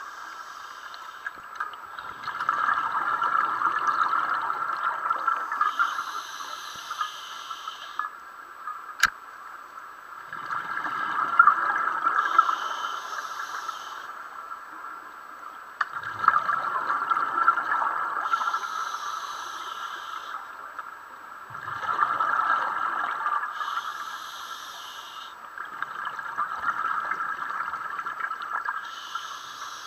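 Scuba diver breathing through a regulator underwater: about five slow breaths, each a short high hiss of inhalation followed by a long bubbling rush of exhaled air, one breath roughly every six seconds.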